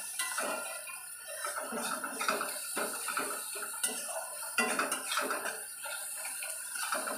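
Metal spatula scraping and knocking irregularly against a steel kadai while stirring sliced onions and green chillies frying in oil.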